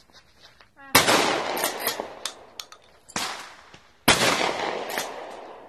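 Two 12-gauge shotgun blasts from a Remington 870 Express pump-action, about three seconds apart, each with a long echoing tail. A short sharp click falls between them.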